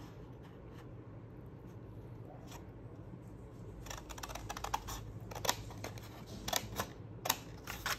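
Scissors snipping cardstock, cutting small notches. The first half is quiet, and then comes a run of short, sharp snips over the last few seconds.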